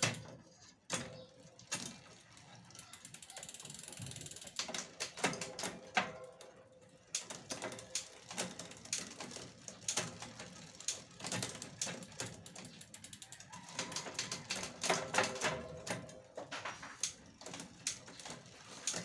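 Cannondale bicycle's drivetrain turned by hand with the rear wheel off the ground: the chain runs over the cassette and Shimano Alivio rear derailleur while the Shimano rear hub's pawls tick rapidly as the wheel spins. The ticking is sparse at first and thickens about four seconds in.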